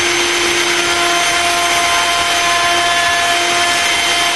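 Electric router running with a steady whine, cutting a round-over along the edge of a small wooden catch.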